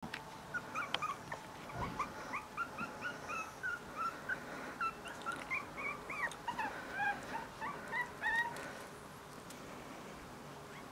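Five-week-old Bolonka Zwetna puppies squeaking and whimpering, a rapid run of short, high, yelping calls that stops about eight seconds in.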